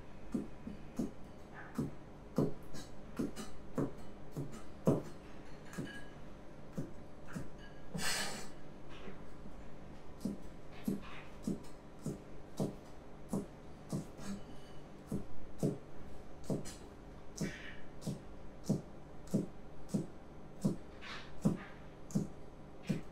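Chinese cleaver chopping green beans on a plastic cutting board: steady knocks of the blade against the board, about two a second. Now and then a brief hiss.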